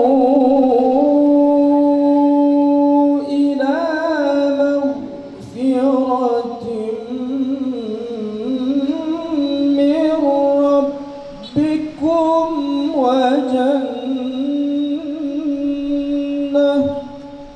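A man reciting the Quran in melodic tilawah style, with long ornamented phrases. It opens on a long held note, and there are pauses for breath about five and eleven seconds in.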